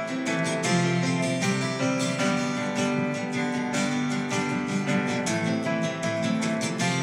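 Acoustic guitar strumming chords at a steady rhythm, with no singing: an instrumental break in the song.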